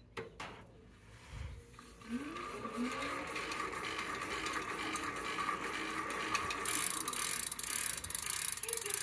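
Aventon Aventure e-bike drivetrain turning as the crank is pedalled by hand: the chain runs over the chainring, cassette and Shimano Acera rear derailleur with a steady mechanical rattling and clicking that starts about two seconds in and grows louder. This is the drivetrain the owner says has chain and rear-wheel issues.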